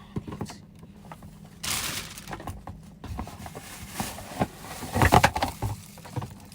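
A blow dryer and its packaging being handled: a rustle of wrapping about a second and a half in, scattered clicks, and a cluster of knocks and thumps about five seconds in. The dryer is not running.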